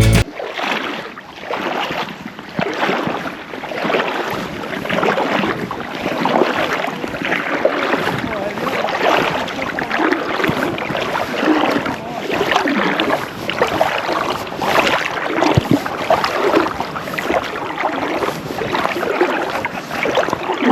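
Water splashing and babbling, its loudness rising and falling unevenly.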